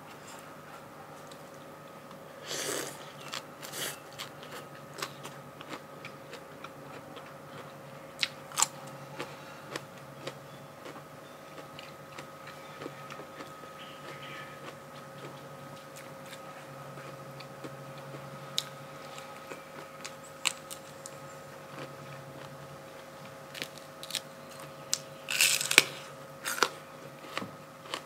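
Close-miked eating: scattered bites and crunches with chewing in between. There are louder clusters of crunching about two and a half seconds in and again near the end, over a faint steady hum.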